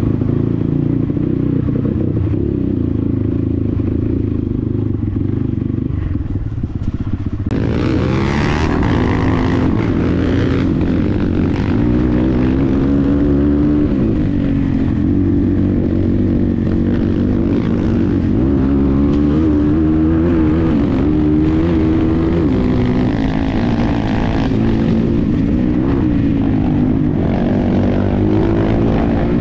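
250cc dirt bike engine heard from the rider's helmet, running under load on a rough dirt track, its pitch rising and falling with throttle and gear changes. About seven and a half seconds in the sound changes abruptly, with more hiss and scattered rattles and knocks over the engine.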